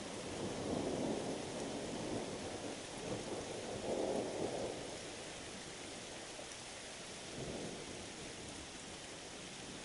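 Thunder rumbling in two swells over the first five seconds, then dying away, over the steady hiss of rain.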